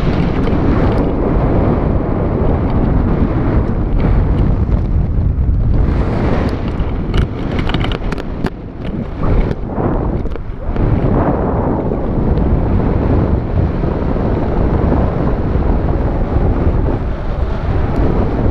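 Wind from a paraglider's flight buffeting an action camera's microphone: a loud, steady rush of air, heaviest in the low rumble, that eases briefly twice a little past the middle.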